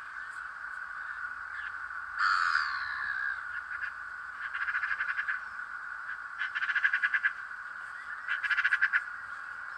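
Animal calls outdoors: a harsh call about two seconds in, then three rapid rattling trills of about a second each, over a steady high background din.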